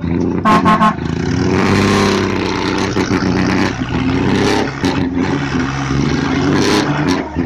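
New Holland TT4.55 tractor's diesel engine running hard under load while towing a stuck ten-wheel truck, revving up and back down about two seconds in. Three short high-pitched blips are the loudest sounds, just after the start.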